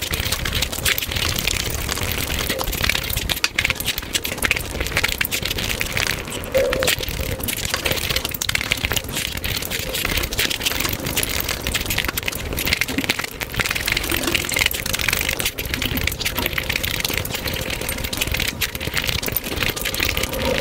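Close-miked eating sounds played back at five times speed: chewing and mouth smacking on chicken biryani, with fingers scooping rice off a plate, merged into a dense, continuous crackling patter.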